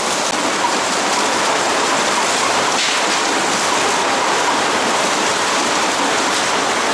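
Potato sorting line running: potatoes tumbling and rattling over the conveyors and sorter in a steady, dense clatter.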